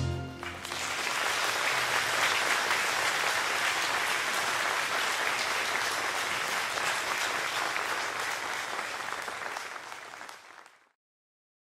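Audience applauding as the choir's last chord dies away, the clapping steady at first and then fading before the sound cuts off abruptly near the end.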